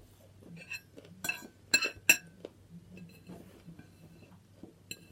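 Tableware clinking: three or four sharp, ringing clinks of cutlery or dishes between about one and two seconds in, with a few fainter clicks afterwards.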